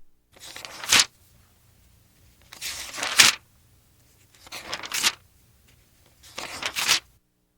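Pages of paper being turned four times, about two seconds apart: each turn is a short rustle that ends in a crisp flick as the page falls over.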